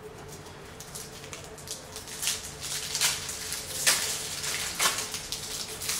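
Yu-Gi-Oh booster pack wrappers and trading cards being handled: a run of crinkles and rustles that grows louder and busier about two seconds in, with a few sharper crackles.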